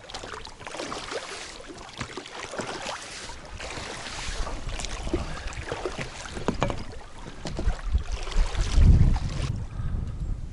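Wind buffeting the microphone in low rumbling gusts, strongest about eight to nine and a half seconds in, over a steady run of crackling and rustling handling noise.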